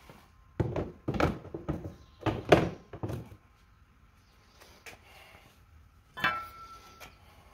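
Heavy LiFePO4 battery boxes set down with several thumps onto the mower's steel battery tray during the first three seconds. About six seconds in comes a single sharp metal clank with a short ring.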